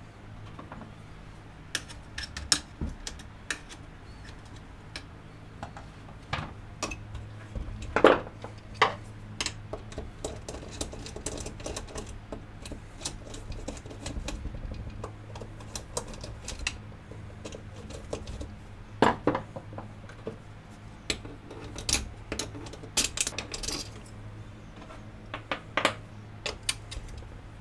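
Screwdriver and small steel screws clicking and clinking against a Honda GL1100 carburetor's metal body and the workbench as the plenum chamber screws are taken out. The clinks are irregular, with sharper knocks about eight seconds in and again near nineteen seconds. A steady low hum runs underneath.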